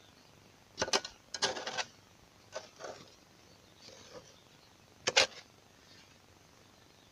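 A few short, sharp knocks and scrapes of a heavy rusted iron wheel being worked loose and shifted in a dug pit of soil, the loudest a double knock about five seconds in.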